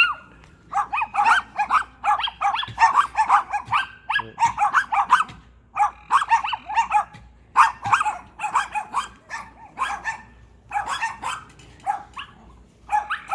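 A pack of several dogs barking nonstop, their short barks overlapping, with a couple of brief lulls.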